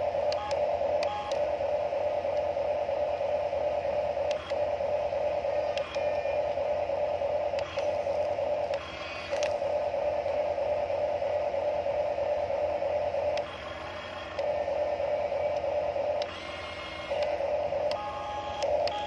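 Huina remote-control toy excavator's electric gear motors whirring steadily as the boom and bucket move, cutting out briefly several times between moves.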